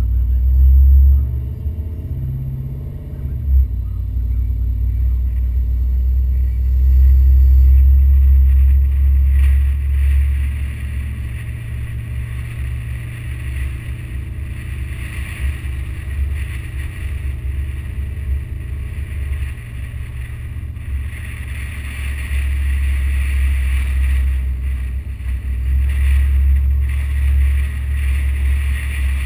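Car being driven, heard from a camera mounted on the outside of the car: a steady low rumble of wind on the microphone with the engine running underneath, a little louder about a second in and again around seven to nine seconds in.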